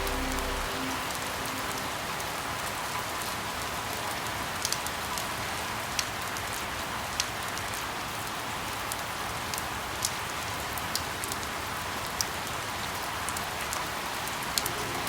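Steady rain falling on a surface, a dense even hiss with sharp single drops ticking out every second or two.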